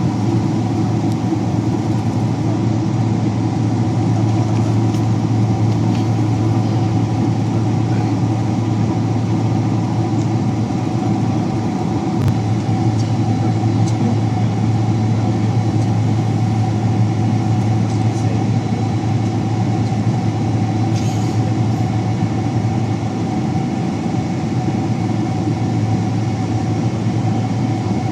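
Steady cabin noise inside a Boeing 767-300 airliner: a constant low hum with a few steady tones above it, unchanging throughout.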